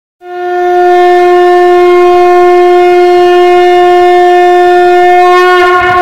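A conch shell (shankh) blown in one long, steady, loud note, held for about five seconds before it wavers and fades near the end.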